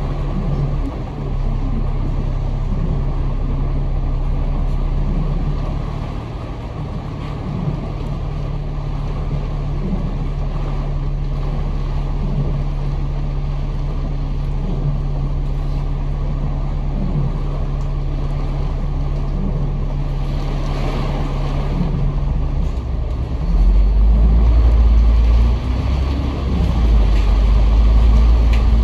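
Bus engine running steadily, heard from inside the cabin, with a louder, deeper rumble setting in near the end.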